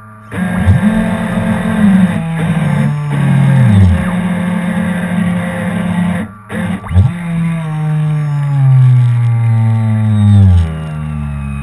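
Motor of a radio-controlled tug boat running. Its pitch rises quickly and then slides slowly down, twice, with a brief dropout about six seconds in.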